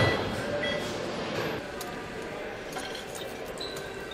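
Engine assembly-line ambience: a sharp thump at the very start, then light metallic clinks and clicks over a steady background noise.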